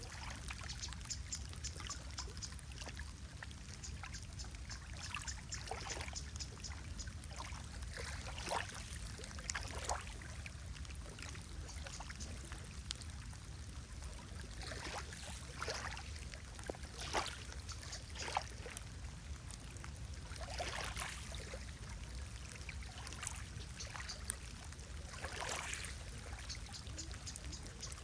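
Lake water lapping and splashing in small irregular surges every few seconds over a steady low rumble.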